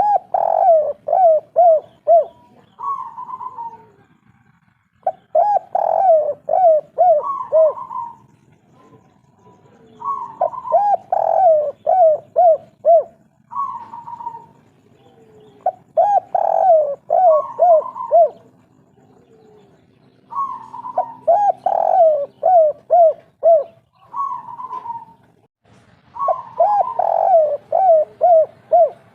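Spotted dove (tekukur) of the 'kuk 3' song type cooing. It repeats its phrase about every four to five seconds: each phrase is a quick run of short coos set between longer, higher coos.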